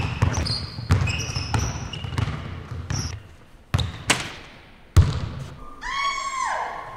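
A basketball dribbled on a hardwood gym floor, with short sneaker squeaks, then a few louder hits about four and five seconds in as the ball is shot at the basket. A drawn-out falling squeak follows near the end.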